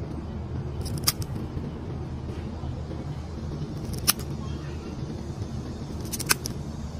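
Three sharp snips of a scissor-style pet nail clipper cutting through a cat's claws, about a second in, at four seconds and past six seconds, over a steady low hum.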